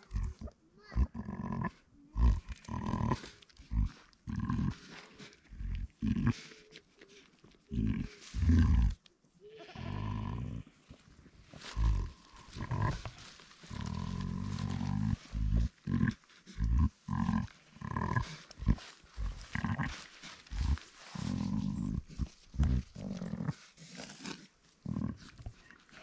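A ewe making repeated short, low calls to her newborn lamb while she licks it: the soft maternal call a ewe gives a lamb just born.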